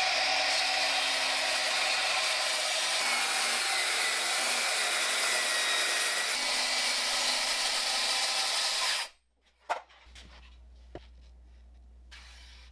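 Cordless brushless circular saw running and ripping a long straight cut through a sheet of MDF at a steady pitch. The sound cuts off abruptly about nine seconds in, followed by a couple of faint knocks.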